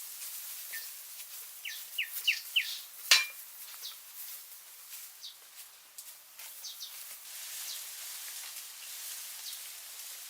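Small birds giving short, high, down-slurred chirps, a quick run of four about two seconds in, over a steady high hiss, with one sharp knock about three seconds in.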